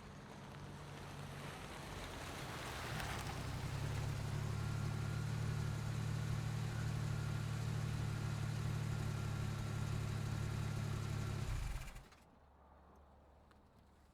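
A car pulling in: its engine grows louder over the first few seconds, with a brief rush of noise about three seconds in. It then idles steadily and stops suddenly about twelve seconds in, as when the engine is switched off.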